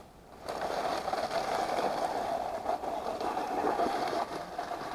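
Axial SCX10 RC crawler's electric motor and gearbox whining steadily as it drives, starting about half a second in.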